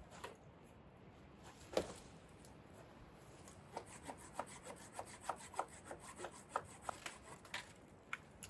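Quiet scraping on wood: a single sharp knock, then from about three and a half seconds in a run of short, even strokes at about three to four a second, as when a blade or tool works a piece of wood.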